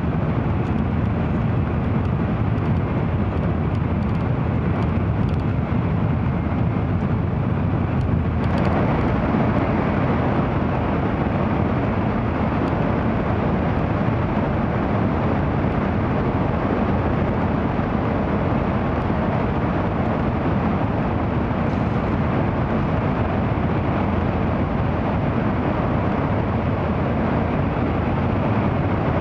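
Steady running noise of an N700 series Shinkansen train at speed, heard from inside the passenger cabin. About eight seconds in there is a brief click, and after it the higher part of the noise stays louder.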